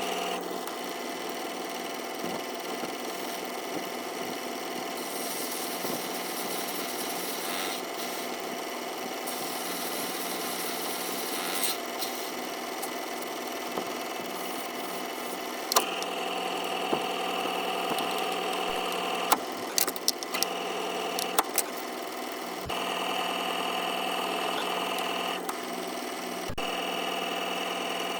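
Small lathe running steadily, reprofiling the flanges of a model locomotive's wheels down to about half a millimetre. It hums evenly, shifts in level a few times, and gives a few sharp clicks in the second half.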